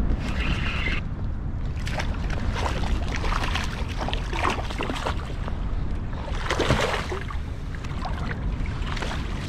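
Wind buffeting the microphone over water lapping and splashing around a kayak, with scattered small splashes and knocks, a cluster of them about seven seconds in.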